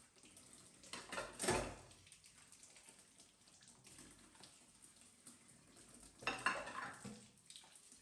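Dishes clinking and clattering against each other and a stainless steel sink as they are washed by hand, loudest twice: about a second in and again near the end. A thin stream of tap water runs throughout.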